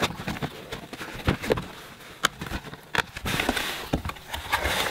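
Screwdriver cutting through the packing tape on a cardboard shipping box: scattered sharp clicks and scrapes, then a longer tearing rasp about three seconds in.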